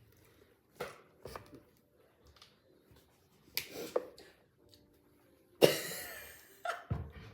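Scattered small knocks and taps of kitchen utensils and baking pans being handled, with one louder sudden clatter about two thirds of the way through.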